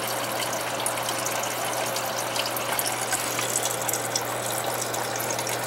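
Water from a circulating pump's return hose rushing steadily into a bucket reservoir, with a steady low hum underneath.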